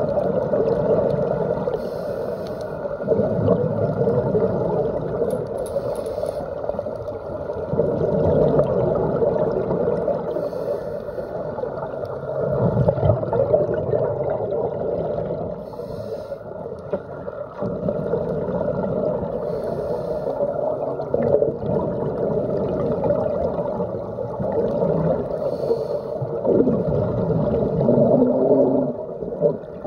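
Muffled underwater sound through a phone's waterproof dive case: the steady rumble and gurgle of a scuba diver's exhaled bubbles and regulator breathing, with a short hiss coming back about every four seconds.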